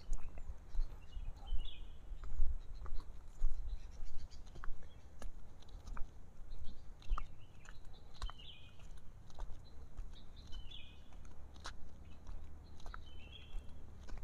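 A bird giving short chirping calls, four times, over a low rumble with scattered light clicks.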